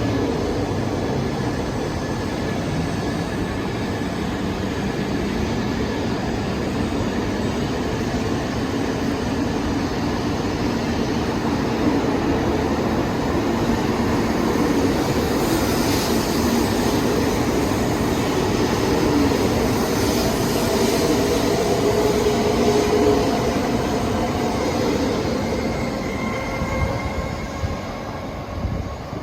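E2 series Shinkansen running, heard from inside the train: a steady rumble of wheels and air with faint whining tones that drift in pitch. It grows quieter in the last couple of seconds.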